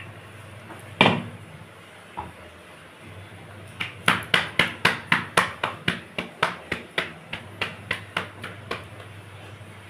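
Roti dough slapped flat between the palms, a fast run of about twenty sharp pats, roughly four a second, for about five seconds. A single knock comes about a second in.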